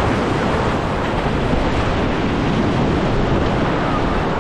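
Heavy ocean surf breaking and washing over rocks, a loud, steady rush of churning water, with wind buffeting the microphone.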